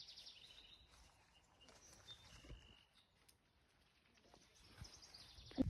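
Faint birds chirping, with short high trills near the start and again near the end.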